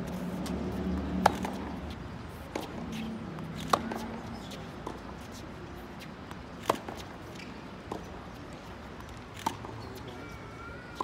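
Tennis rally on a hard court: sharp racket-on-ball pops, four loud ones from the near player's strokes spaced two and a half to three seconds apart, with fainter pops from the far end of the rally between them.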